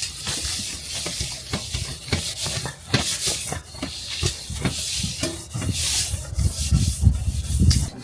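Close rubbing and scraping with many small knocks, heavier dull thumps near the end.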